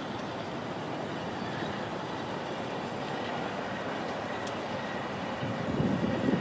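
Diesel-electric freight locomotives approaching slowly, their engines giving a steady rumble that grows louder and rougher in the last second.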